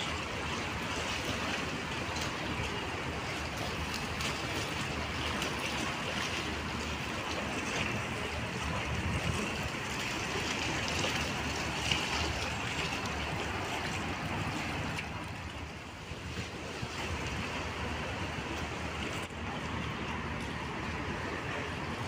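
Sea water washing against a rocky shore in a steady wash, with wind buffeting the microphone.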